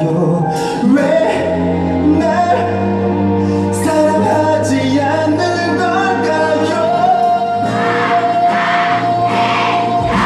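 Male vocalist singing a slow K-pop ballad over a soft backing track, holding one long steady note through the second half.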